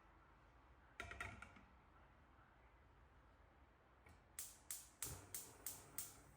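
Quiet room tone, broken about a second in by a brief cluster of clicks. From about four seconds in come about six sharp taps in an even rhythm, roughly three a second.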